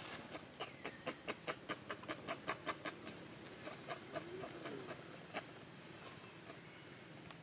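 Monkeys making a quick, even run of sharp clicks, about five a second for some two seconds, then a soft short call.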